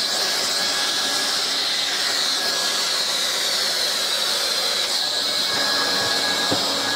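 Hot-air plastic welding gun blowing a steady hiss while the plastic panels of a filter box are tack-welded together, with a few faint knocks near the end.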